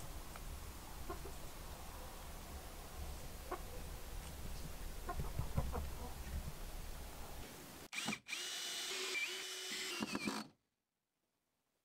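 Cordless drill boring into a wooden shed wall for about two seconds, its motor whine dipping and rising in pitch with the trigger. It cuts off into dead silence. Before it there is a low rumble with a few small knocks.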